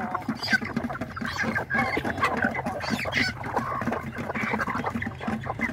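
A flock of chickens, hens and roosters, clucking with many short, overlapping calls as they crowd together pecking at feed.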